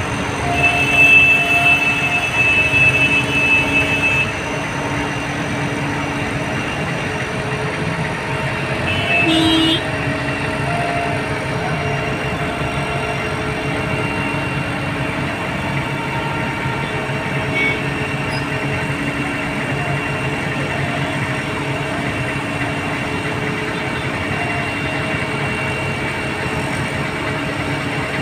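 Mobile crane's diesel engine running steadily under load. A horn sounds for about three and a half seconds near the start, and a second short horn blast comes about nine seconds in.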